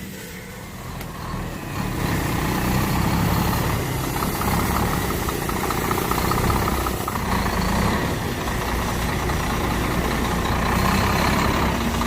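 Heavy truck's diesel engine running steadily at idle, coming up louder about two seconds in.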